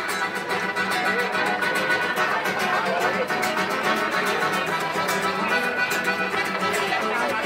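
A piano accordion playing live with two acoustic guitars strummed in a steady rhythm.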